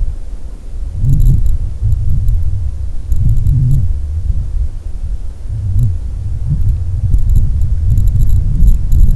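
Wind buffeting the microphone: a low rumble that swells and fades every second or two. Faint bursts of rapid, high chirring come and go over it.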